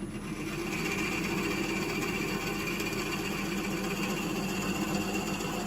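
Wood lathe running at a reduced speed while a drill bit, fed from the tailstock, bores into the spinning wood blank: a steady motor hum with a high whine.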